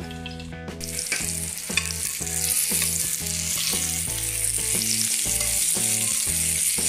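Stuffed bitter gourds (karela) frying in hot oil in a pan, sizzling steadily. The sizzle gets louder a little under a second in as the lid comes off, with light clicks of tongs turning the gourds.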